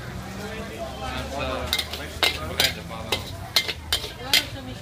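Metal spatula scraping and clanking against a wok as mee goreng noodles are stir-fried, with sizzling underneath. The clanks come about twice a second from about two seconds in.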